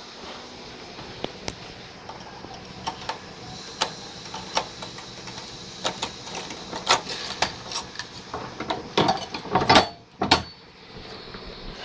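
Irregular metallic clicks and knocks of door hardware being handled, growing denser, with a cluster of louder clanks near the end, over a steady background hiss.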